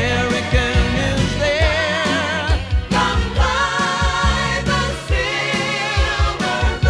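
Music: a song with sung voices holding wavering notes over a steady drum beat and bass.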